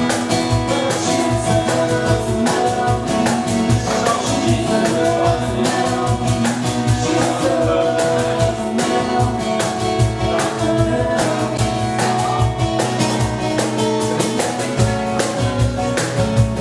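Live acoustic music: a guitar strummed in a steady, even rhythm under sustained notes.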